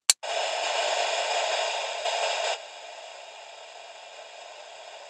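A click, then open-squelch static hissing from the Moonraker Micro CB radio's speaker on channel 19 as it listens for a reply. About two and a half seconds in the hiss drops suddenly to a steady, quieter level.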